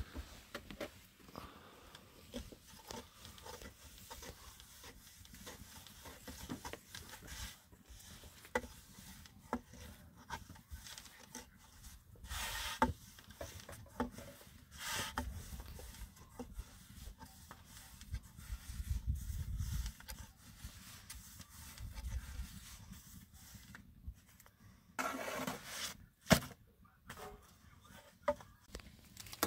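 Long thin wooden rolling pin working flatbread dough on a wooden board: soft rubbing with irregular light wooden knocks and clicks, and a few louder scuffs.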